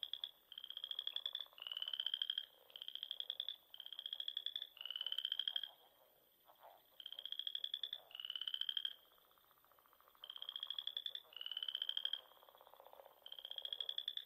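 Purple frog calling: a run of about a dozen short calls, each a rapid train of clicking pulses with a slightly rising pitch, repeated about once a second with two brief pauses.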